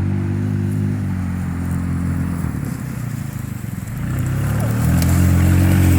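Small single-cylinder engine of a kids' side-by-side running. It eases off around the middle, then revs back up and holds louder near the end.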